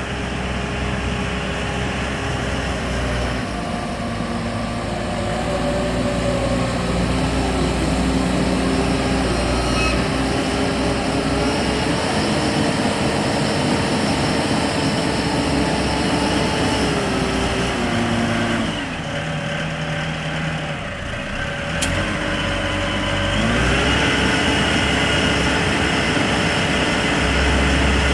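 Diesel engine of an LT-1.8 self-loading concrete mixer truck running steadily, its pitch dropping about two-thirds of the way through and climbing back a few seconds later.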